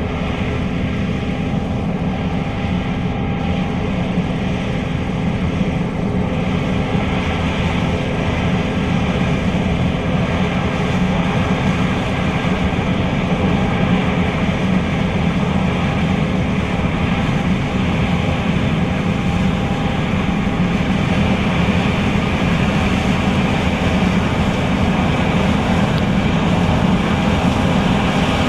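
John Deere S660 combine harvester running steadily as it harvests soybeans: a loud, even engine and machinery sound with a low steady pitch, growing slightly louder towards the end.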